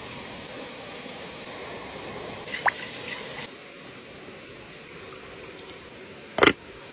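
Liquid pouring and dripping over the steady rush of a stream, with a short plip about two and a half seconds in and a loud sharp knock near the end.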